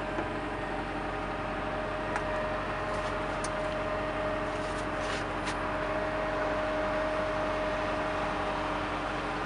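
Cat M315D wheeled excavator's diesel engine idling, heard from inside the cab: a steady hum with a constant whine over it. A few faint clicks come from about two to five and a half seconds in.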